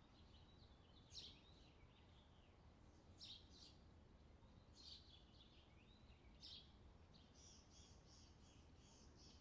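Faint outdoor summer ambience: birds chirping in short high calls every second or so. From about seven seconds in, a rapid, evenly repeated high chirp of about three a second joins them, over a low steady background hum.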